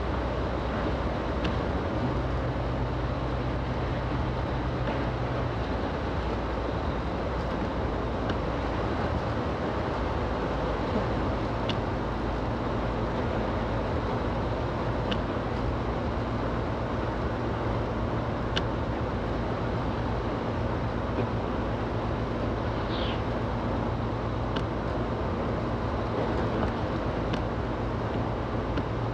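Road noise inside a moving car on a snowy highway: a steady rush of tyres and wind over a low engine hum that shifts in pitch a few times. Light ticks come about every three seconds, and a brief high squeak sounds about two-thirds of the way through.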